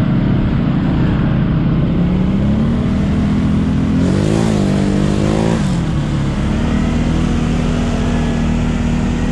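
ATV engine running under throttle, its pitch climbing slightly, then revving up sharply about four seconds in and dropping back about a second and a half later before holding steady.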